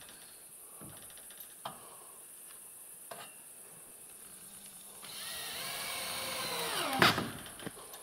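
Power drill-driver driving a self-tapping screw into a wooden fence. The motor whines for about two seconds, its pitch sagging as the screw bites and tightens, then stops with a sharp knock. A few light knocks come before it.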